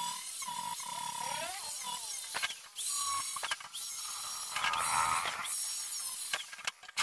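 Electric angle grinder with an abrasive disc grinding steel: a high motor whine that wavers and sweeps in pitch as the disc bites and lifts off, broken by a few short gaps.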